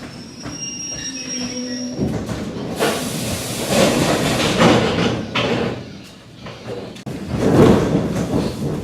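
ED4M electric multiple unit running along the track, wheels on rails, with a faint high squeal at first. A few seconds in, a loud rushing noise swells up and peaks twice, first around the middle and again near the end.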